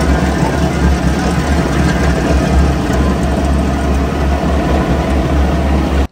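Skid steer's engine running steadily under load while its hydraulic rotor-head attachment deep-grinds the ground, a heavy low rumble with dense grinding noise over it. It cuts off suddenly at the end.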